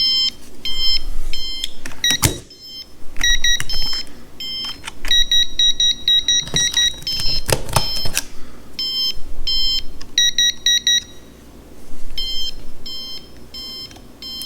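Non-contact voltage tester pen beeping in runs of short high beeps, about two a second, with brief pauses as it is moved over the outlet wires: it is detecting live voltage. A couple of sharp knocks of handling come through between the beeps.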